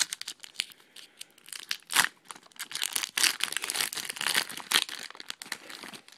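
Plastic trading-card pack wrapper crinkling as it is handled, a dense run of crackles with a sharp snap about two seconds in, stopping just before the end.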